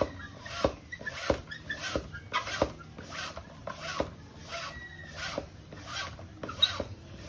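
Bicycle tyre pump worked in steady strokes, about three every two seconds, each with a rush of air, inflating a mountain-bike tyre just filled with tubeless sealant.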